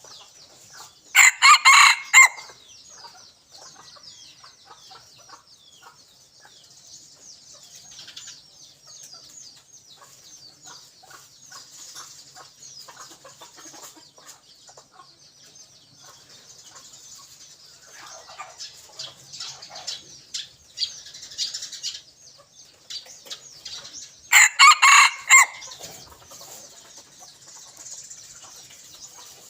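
A red junglefowl rooster crowing twice, each crow short, the two a little over twenty seconds apart, over faint high chirping of birds and insects.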